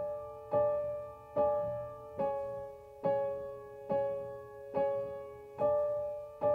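Instrumental song intro on piano: a slow, even run of struck notes a little more than once a second, each ringing out and fading before the next.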